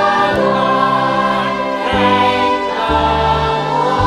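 Stage chorus of young mixed voices singing a gospel-style show tune in full ensemble over instrumental accompaniment, with the bass note changing about once a second.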